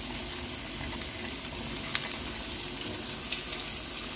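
Breaded mushroom chicken nuggets deep-frying in hot oil in a steel wok: a steady sizzle with scattered crackles and pops.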